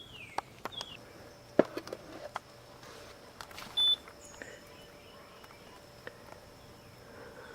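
Faint background with scattered small clicks and knocks, two short falling chirps near the start, and one brief high-pitched beep about four seconds in over a faint steady high whine.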